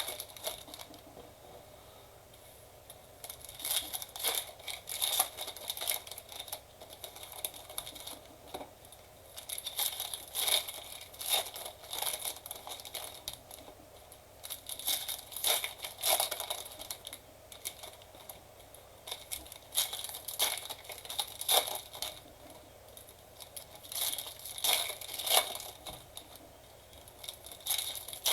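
Plastic wrapping on trading-card packs or a card box crinkling and tearing as it is ripped open by hand, in irregular bursts of crackling with short pauses between.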